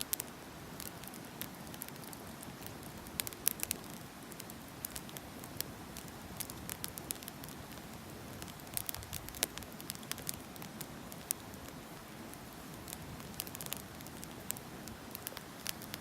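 Burning firewood crackling and snapping in irregular sharp pops, over a steady low rush of the flames.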